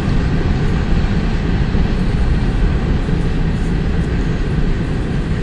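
Steady, loud low rumble of a freight train's cars rolling on past a grade crossing.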